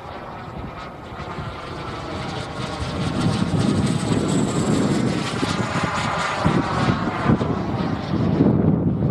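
A radio-controlled model jet's Jet Munt 100 turbine flies past overhead, its roar and whine growing steadily louder. A thin high whistle sinks slightly in pitch about halfway through.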